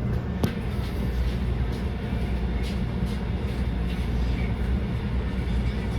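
SEPTA trolley, a Kawasaki light rail car, running along street track: a steady low rumble, with a sharp click about half a second in and a few fainter ticks after.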